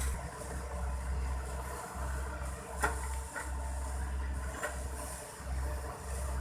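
Heavy-machinery diesel engine running steadily with a deep, pulsing rumble, and a few short metallic clanks, the sharpest about three seconds in.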